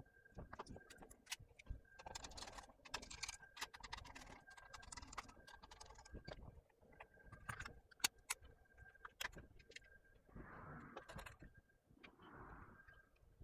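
Scattered light clicks, taps and rustles of laptop parts being handled as the laptop is put back together, with a faint steady high tone behind them.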